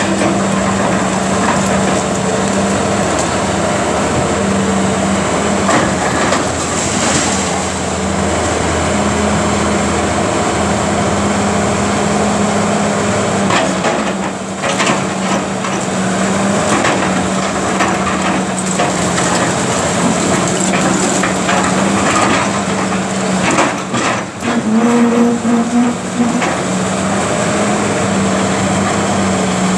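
Caterpillar 330B excavator's diesel engine running steadily while its demolition grapple works on a brick building, with intermittent cracks and knocks of breaking debris. A cluster of knocks and crunches comes late on.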